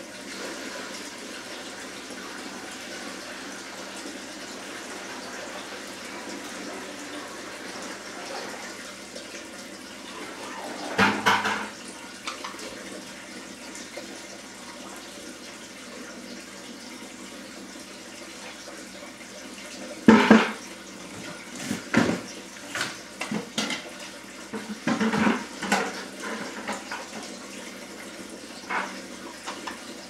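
Steady running water from an aquarium water change. A few louder, sudden sounds break in, once about a third of the way through and several times in the second half.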